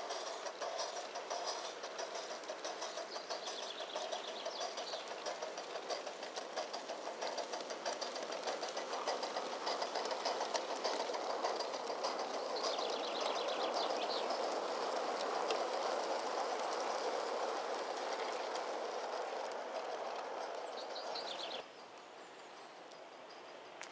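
Gauge 1 live-steam model of a Midland Railway Tilbury tank locomotive running, with a rapid beat of exhaust chuffs and rail clatter that grows louder as it comes closer. The sound drops off abruptly a couple of seconds before the end. Small birds chirp a few times.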